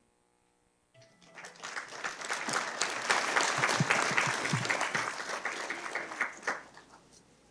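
Audience applause that starts about a second in, swells, then dies away near the end.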